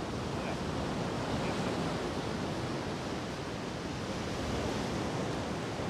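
Steady wash of ocean surf, with wind.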